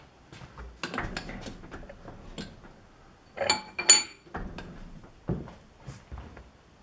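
Metal tools and parts being handled, a scatter of clicks and knocks with two sharp, ringing metal clinks about three and a half seconds in.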